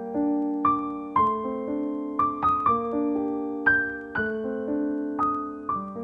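Piano music: a melody of single struck notes, each fading, over held lower notes.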